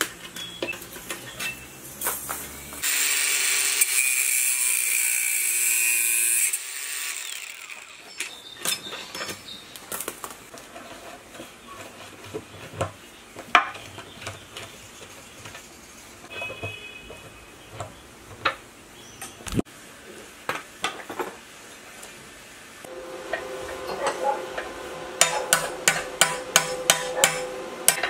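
Hand tools at work on the metal of a single-cylinder 1115 diesel engine, with scattered clicks and knocks of metal. A loud hiss runs for about three and a half seconds starting about three seconds in. Near the end, a bolt being turned with a T-handle socket wrench gives a squeaking tone and a quick run of sharp metallic clicks.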